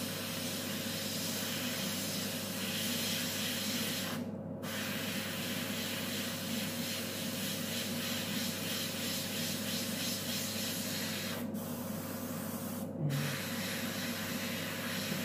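Airbrush spraying paint: a steady hiss of air, cut off for a moment about four seconds in and twice more near the end as the trigger is let go.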